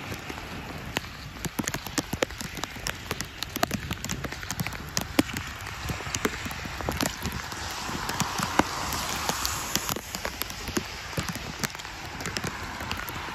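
Rain falling on a wet street: a steady hiss with many irregular, sharp ticks of raindrops hitting close by.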